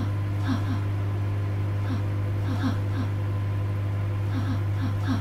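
Microwave oven running: a steady low hum, with light ticks coming in pairs at uneven intervals.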